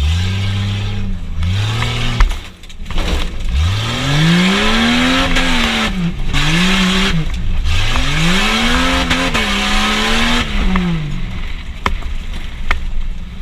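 A tough-truck engine revs hard in repeated surges, its pitch climbing and falling several times, with a loud bang about two seconds in.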